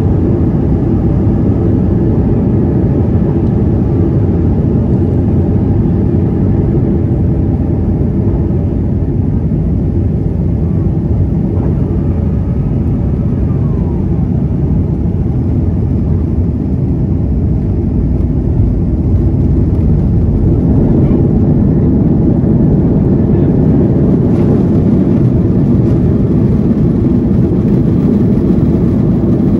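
Cabin noise of a Boeing 737-200 landing, heard from a seat beside its Pratt & Whitney JT8D-9A engine: a loud, steady rush of engine and airflow. The noise grows louder and hissier in the last few seconds as the engine's thrust reversers are deployed.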